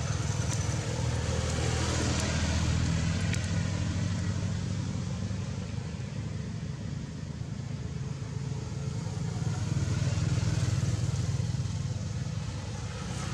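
Steady low rumble of motor traffic, swelling twice as vehicles pass.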